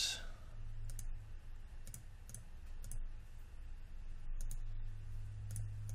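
Computer mouse clicking as faces are selected one by one: a string of short, sharp, irregularly spaced clicks over a low steady hum.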